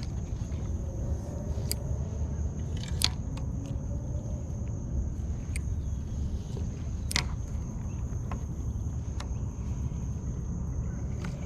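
Outdoor lakeside ambience: a low steady rumble, a thin steady high insect drone, and a handful of sharp clicks every second or two.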